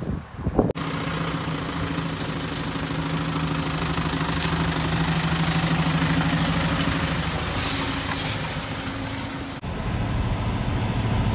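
A couple of sharp knocks at the start, then a horsebox lorry's diesel engine running steadily as it pulls past, with a short hiss about two-thirds of the way through. After a sudden cut, the engine's lower drone is heard from inside the cab.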